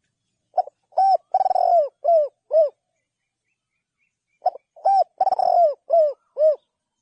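Spotted dove cooing: two matching phrases, each a run of short, low coos around one longer drawn-out note, the second phrase starting about four seconds after the first.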